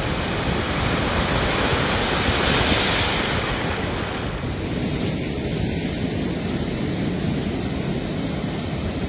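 Heavy surf pounding the shore under strong cyclone wind, with wind buffeting the microphone; a wave surge swells to a peak about two and a half seconds in.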